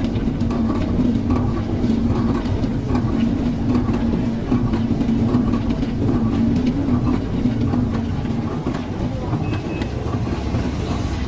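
Motor of a rotating-drum roller ice cream machine running steadily with a continuous low hum and rumble while the chilled drum spins.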